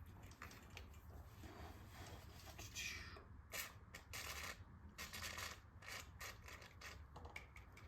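Faint, irregular scraping and rubbing of metal tools working on an old rusted motorcycle drive chain, with short strokes that come thicker from about three seconds in.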